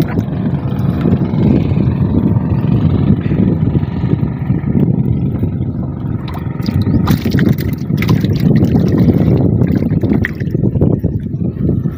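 Water sloshing and lapping against a small outrigger boat's hull, heard as a steady low rumble, with a faint steady hum in the first half. Short clicks and rustles come from a gill net being handled, a cluster of them about seven seconds in.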